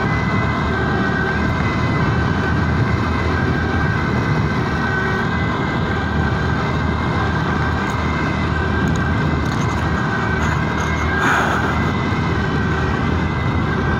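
Steady noise from riding in traffic: wind and road noise, with an ambulance siren sounding through it as a thin steady tone. About eleven seconds in, a brief louder swell of noise passes.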